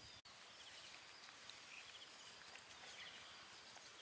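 Near silence: faint outdoor ambience, with a few faint, quick high chirps now and then.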